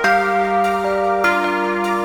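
Soft new-age background music: sustained keyboard notes, changing about every second.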